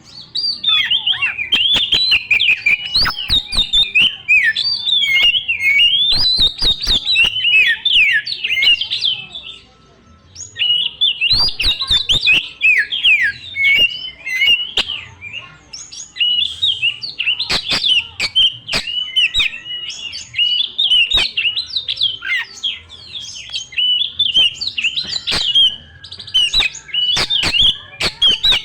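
Oriental magpie-robin (kacer) singing a fast, unbroken stream of varied whistles and chirps, with sharp clicks mixed in and a short break about ten seconds in.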